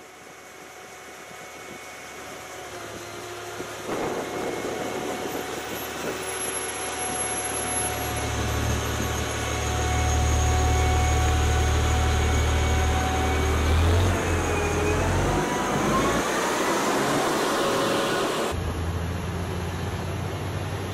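Volvo R100 rigid dump truck's diesel engine running as the truck drives closer, growing louder over the first ten seconds. The pitch rises a few seconds before the end, then the sound changes abruptly.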